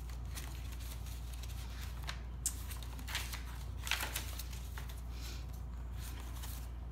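Coffee-dyed paper pages of a handmade journal being turned and handled by hand: soft paper rustles with a few brief crisp swishes as pages flip over, over a steady low hum.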